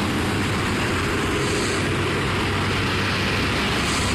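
Steady rushing background noise with a low hum underneath, unchanging in level.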